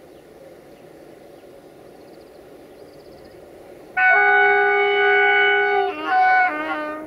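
Horn of a 060-DA (LDE2100) diesel-electric locomotive hauling a freight train: after a faint steady rumble of the approaching train, a loud multi-tone horn blast starts about four seconds in and is held for about two seconds, then cuts to shorter blasts at a different pitch near the end.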